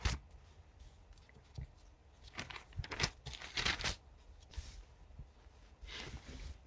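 Paper rustling in several short, irregular bursts as pages are turned and handled.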